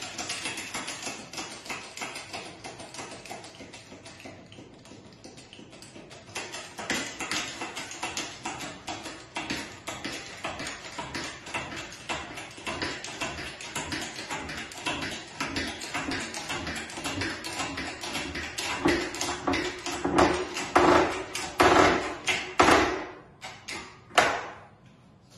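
Steamed ash board crackling and clicking as a press forces it over a curved bending form, the clicks crowding and growing louder near the end as the bend closes.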